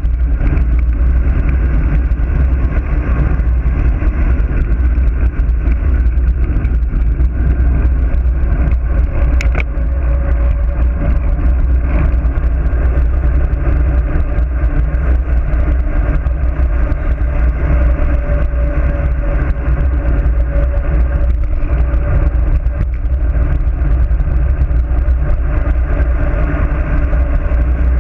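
Steady loud rumble of wind and road noise on a bike-mounted GoPro during a fast road-bike descent, with a single click a little under ten seconds in and a faint wavering hum from about ten seconds on.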